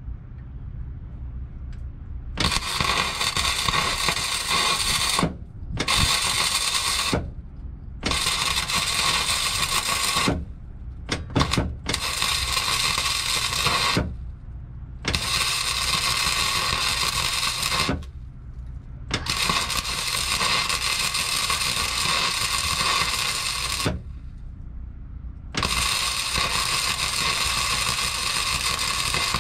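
Wire-feed (MIG) welder running flux-cored wire, the arc sizzling in about seven stop-start runs of one to five seconds each with short pauses between. The weld is being built up to fill a gap around a deck pipe penetration against a backing plate.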